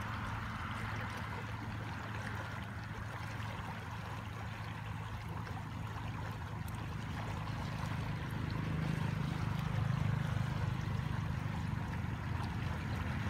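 Muddy floodwater rushing and churning down a swollen stream, a steady broad rush. Under it runs a low steady hum, like a distant engine, that grows louder in the second half.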